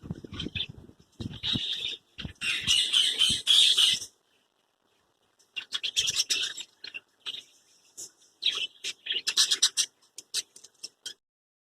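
Animal calls in a run of short bursts, with a pause a little after four seconds, stopping about eleven seconds in.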